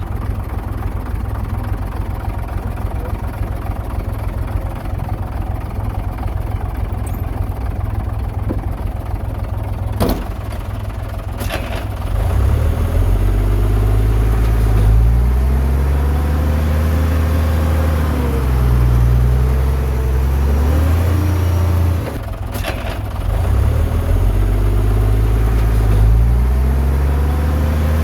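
Heavy diesel earthmoving engine running, then working under load from about twelve seconds in, its pitch rising and falling as it revs up and down. A few sharp knocks cut through along the way.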